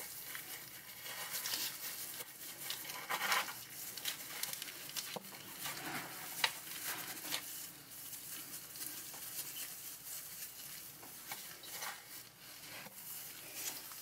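Faint, irregular rustling and crinkling of a plastic zip bag and fine wire wool as nitrile-gloved hands press the wool around a paste-coated steel die, with a few small clicks.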